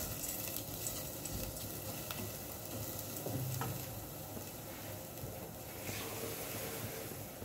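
Rice and onion sizzling in hot oil in a stainless steel saucepan, stirred with a wooden spoon at first; the stirring stops and the steady sizzle goes on. The rice is being toasted until the grains turn translucent, the first stage of a rice pilaf.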